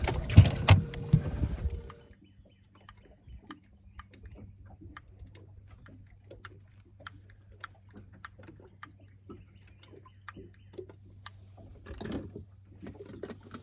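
Sounds on a small fishing boat: a loud rushing noise that cuts off suddenly about two seconds in, then a faint steady low hum with scattered light clicks and taps.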